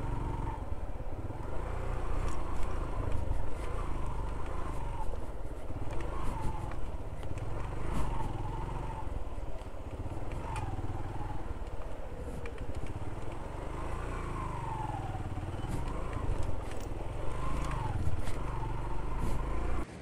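Motorcycle engine running while riding, its revs rising and falling every couple of seconds, with scattered sharp clicks and rattles over a heavy low rumble.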